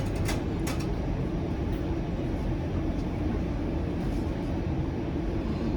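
Steady low rumble of a Bombardier Flexity Outlook low-floor streetcar, heard from inside the passenger cabin, with a couple of short clicks in the first second.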